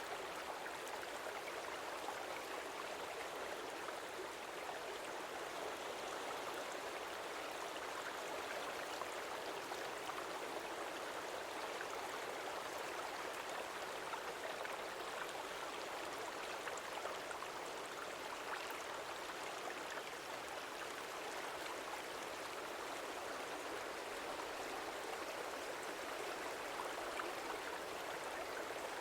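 Stream water flowing, a steady, unchanging rush with almost no deep tones.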